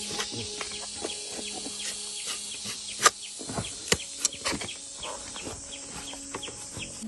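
Steel chisel working wood: an irregular run of sharp taps and cracks as the blade is struck and cuts, the loudest about three and four seconds in.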